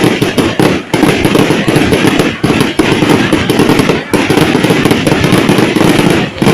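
Fireworks display going off: a dense, almost continuous run of rapid bangs and crackles, loud throughout, with a few brief lulls.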